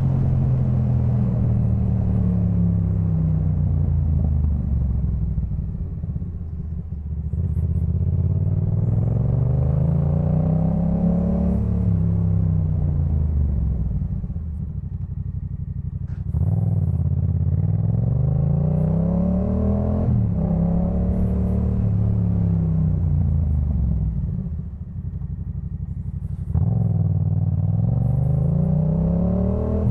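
Yamaha MT-07's 689 cc parallel-twin engine through a Jeskap K4 full aftermarket exhaust, ridden hard: the engine note rises repeatedly as it pulls through the gears and drops at each upshift. About three times it eases off the throttle and goes quieter, then comes back on the power with a sudden jump in loudness.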